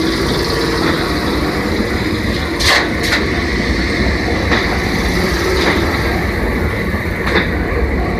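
Enoden 2000-series electric train running, a steady rumble with a few sharp clicks of the wheels over the rails.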